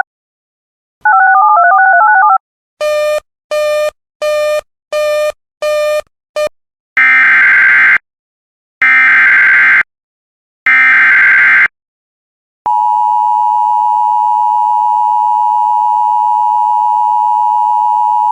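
Electronic alert tones: two short stretches of a warbling two-note pattern and six quick beeps, then three screeching bursts of about a second each with a second between them, the digital EAS (SAME) header of a new alert. About two-thirds of the way in, the steady two-tone Emergency Alert System attention signal begins and holds.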